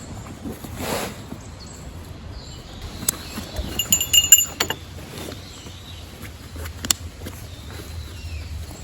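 Camping gear being handled and packed away, with a cluster of sharp ringing clinks about three to four and a half seconds in and a single clink near the end. Birds call faintly in the background.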